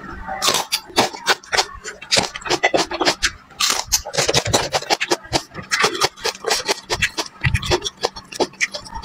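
Close-miked crunching and chewing as a raw long green Sichuan chili pepper (er jing tiao) is bitten and eaten, a rapid run of crisp cracks and wet mouth sounds.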